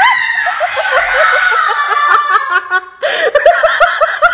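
People laughing hard in rapid, repeated 'ha-ha' bursts; the laughter dips briefly about three seconds in and starts up again.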